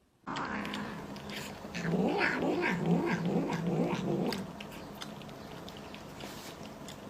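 A cat yowling: a low, wavering cry that is loudest from about two to four seconds in, then carries on more quietly.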